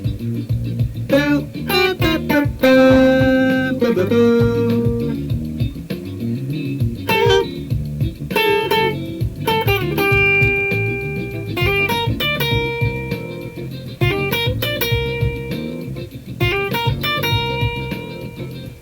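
Funk music: a guitar plays a melody of held single notes over a rhythmic bass groove.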